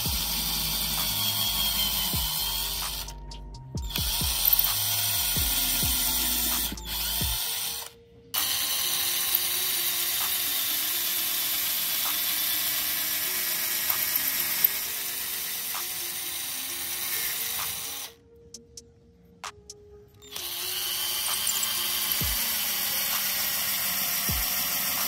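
A cordless drill runs steadily as its bit bores lengthwise into the end of a wooden dowel, a tobacco pipe stem. The drill stops briefly about 3 s in and again about 8 s in, then pauses for about two seconds near 18 s before running on.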